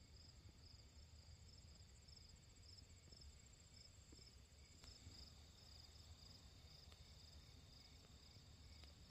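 Faint insects chirping outdoors: a regular high chirp about twice a second over a steady high-pitched trill.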